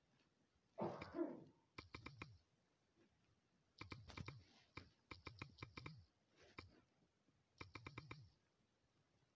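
Faint clicks of typing on a smartphone's on-screen keyboard, in short bursts of quick key taps with pauses between words.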